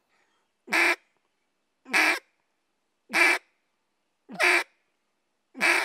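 Echo Timber duck call blown in five evenly spaced single quacks, about one every 1.2 seconds, each note cut off sharply. This is the basic repeated single-quack drill for learning the quack.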